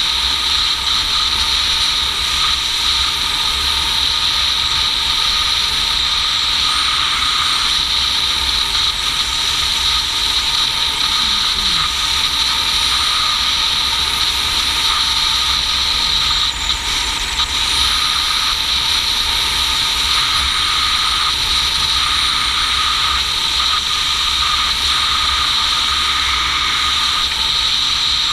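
Motorcycle cruising at a steady speed, with wind rumble on the microphone, a steady engine drone and a constant high hiss or whine. Revs and speed do not change.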